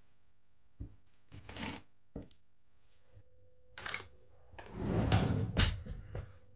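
Hands handling small objects on a workbench: a couple of light knocks and short rustles, then a longer, louder rustle about five seconds in, over a faint steady hum that starts about three seconds in.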